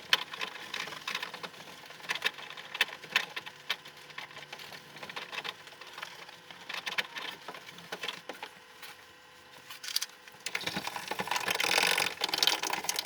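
Washing-machine parts being scrubbed with a scouring scrub pad and chlorine detergent: irregular scraping and clicking strokes, denser and louder near the end.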